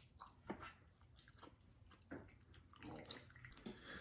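Faint eating sounds: quiet chewing with a few soft clicks.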